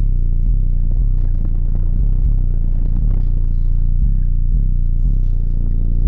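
A car audio system's subwoofers playing bass-heavy music at very high volume, the deep bass beat pulsing about twice a second.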